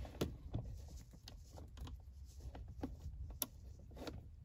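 Ratchet socket wrench working on the radio's mounting nuts: a handful of faint, irregularly spaced clicks and taps.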